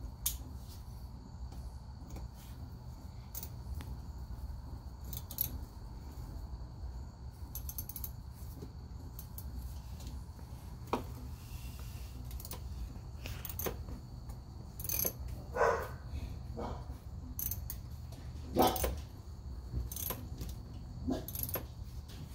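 Irregular metallic clicks and clinks of hand tools and parts being worked under a side-by-side, over a steady low hum, with a couple of louder knocks in the second half.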